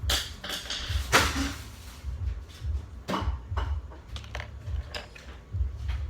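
Irregular light clicks and knocks, as of small objects being handled, over an uneven low rumble; the sharpest knock comes about a second in.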